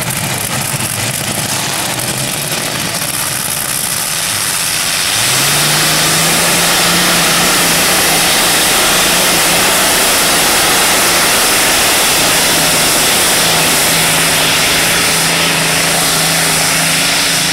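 Modified pulling tractor's engine, at low revs at first, opening up to full throttle about five seconds in and then running hard at steady high revs while it drags the weight-transfer sled down the track.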